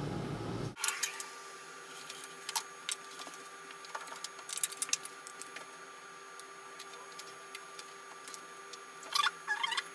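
Steady hum and hiss that cuts off abruptly under a second in, followed by scattered light clicks and taps from small objects being handled, with short clusters of clicks near the middle and near the end.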